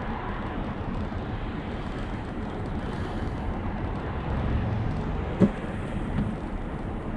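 Steady road and running noise of an Audi Q7 50 TDI on the move, heard from inside the cabin as a low, even rumble. One short knock sounds about five seconds in.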